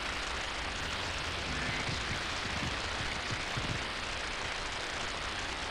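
Steady hissing noise backdrop from an audiobook soundscape, with a few faint low thuds about three seconds in.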